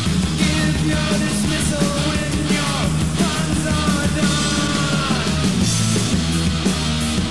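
Loud, fast, hard-edged rock from a full band recording, playing steadily with drum hits and sliding pitched notes.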